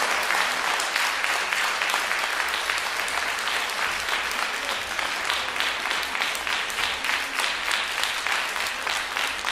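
Audience applauding: dense, even clapping throughout.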